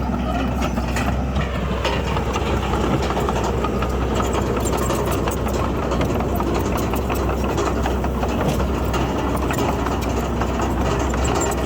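Komatsu D31PX bulldozer's heavy diesel engine running steadily with a deep hum, with many light clicks over it.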